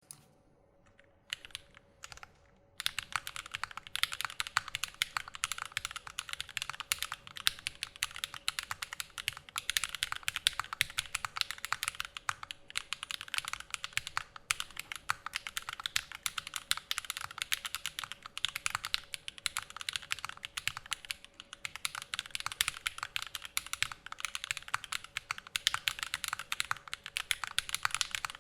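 Typing on an MGA Standard Alice-layout mechanical keyboard with SP Star Meteor switches, an aluminium plate and GMK keycaps, a kind of clacky, not hollow, sound. A few single key presses come first, then fast continuous typing from about three seconds in.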